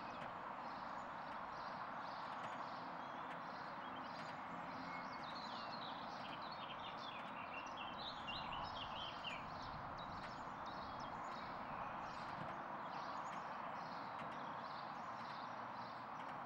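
Steady outdoor background hiss with faint high chirps repeating every fraction of a second, and a quick twittering run of high notes about five to nine seconds in.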